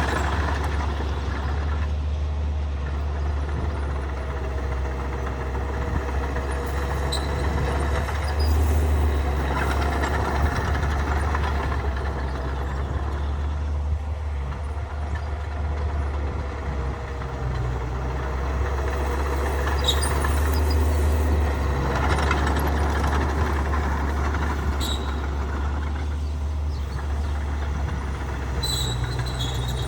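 Heavy diesel earthmoving machinery running steadily: a bulldozer and dump trucks at work, with a deep, even engine drone and a few short high-pitched squeaks or hisses.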